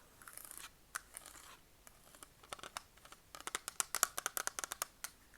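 Close-miked ASMR trigger sounds: a short scratchy rustle, then scattered clicks, then a fast run of crisp tapping clicks, about ten a second, for over a second near the end.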